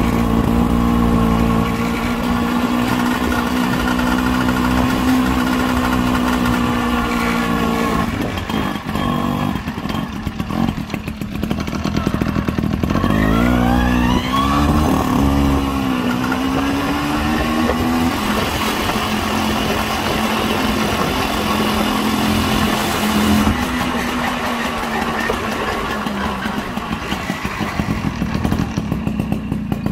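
Tomos Standard moped's single-cylinder two-stroke engine running while riding. Its pitch holds steady, falls off about eight seconds in, rises sharply as it accelerates around thirteen seconds, then settles and eases off again near the end.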